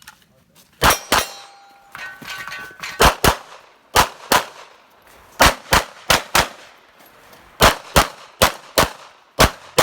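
Pistol shots fired in quick pairs, about eight pairs, during a USPSA practical shooting stage run. Steel targets ring with clear tones after the first couple of pairs.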